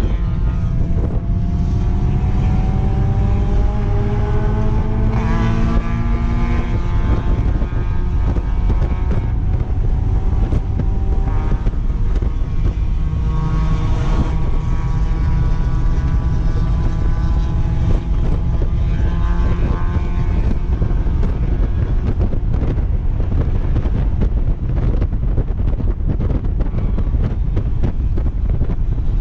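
Mazda MX-5 Miata's 2.0-litre four-cylinder engine at speed on track, its note climbing several times as it accelerates. Heavy wind rumble on the microphone in the open cockpit runs under it.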